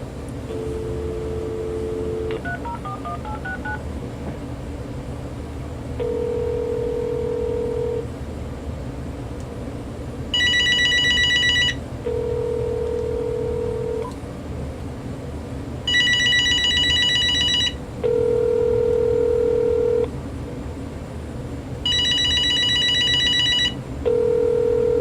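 A telephone call being placed: a dial tone, a quick run of touch-tone digits dialed, then a repeating ringback tone, 2 s on and 4 s off. In between the ringback tones, the GE 2.4 GHz cordless phone's electronic ringer sounds three times as the call comes in.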